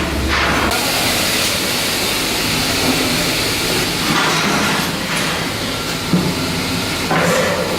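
Steady, loud hissing noise of shipyard work, with a single sharp knock about six seconds in.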